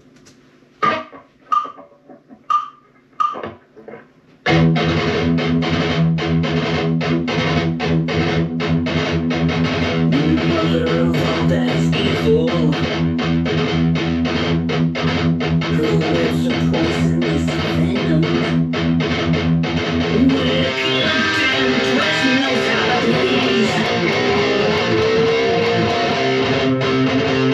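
Jackson electric guitar played with a backing track through monitor speakers. A few separate short hits come first, then the full music starts suddenly about four and a half seconds in and continues as a dense, fast riff.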